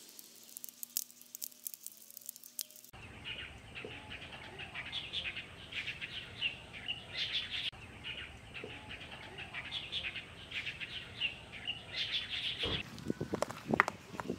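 Small birds chirping repeatedly in quick short notes, starting about three seconds in. Near the end, a few sharp knocks as bricks are set down and shifted on each other.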